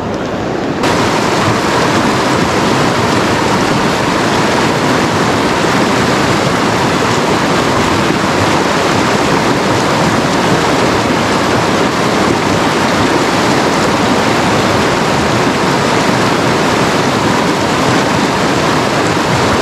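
Fast-flowing mountain river: a steady, loud rush of water that jumps louder and brighter about a second in.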